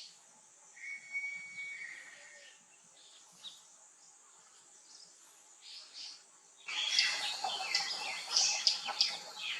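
Wild birds calling: sparse short notes and one held whistled note about a second in, then, about two-thirds of the way through, an abrupt switch to a much louder, busy chatter of many quick chirps.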